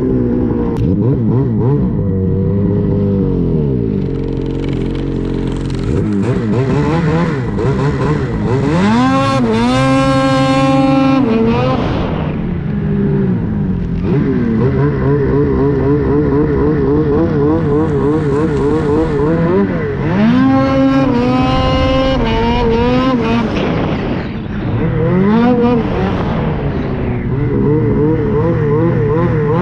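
Ski-Doo Summit 850 E-TEC Turbo R snowmobile's turbocharged two-stroke engine running hard under a rider. Its pitch rises and falls with the throttle, with two hard pulls about nine and twenty seconds in that are each held for a couple of seconds before easing off.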